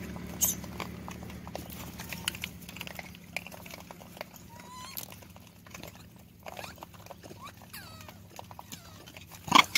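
Troop of rhesus macaques foraging on dry ground: scattered scratching and clicking of hands on dirt and pebbles, with a few short squeaky calls. One louder sharp sound comes near the end.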